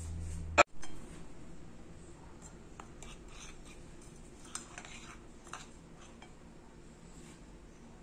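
A low hum cut off by a sharp click about half a second in, then faint scattered clinks and scrapes against a glass bowl as chocolate topping is worked out of it onto the cake.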